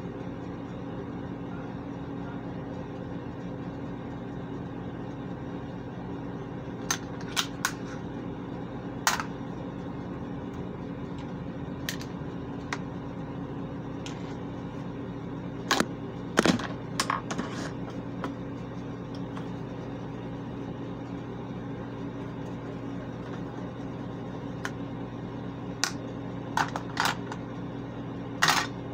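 Scattered clicks and taps of makeup containers and plastic cases being handled, in small clusters, over a steady low hum.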